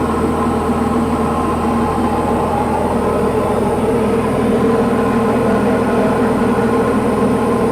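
Diamond DA40's piston engine and propeller droning steadily in flight, heard inside the cockpit.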